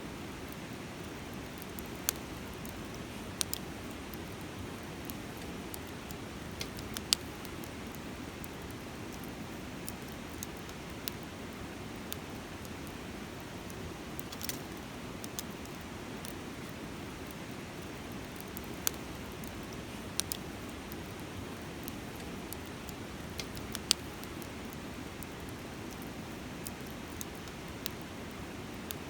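Wood campfire crackling, with sharp irregular pops, over the steady rush of a flowing river.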